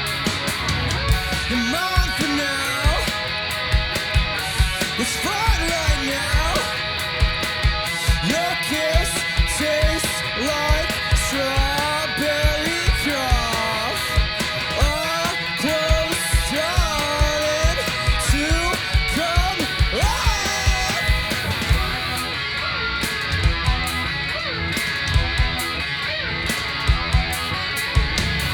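Two-piece punk rock band playing live: a drum kit keeping a steady beat under a Fender Telecaster electric guitar. A bending melody line runs over them and drops out about three-quarters of the way through, leaving the guitar and drums.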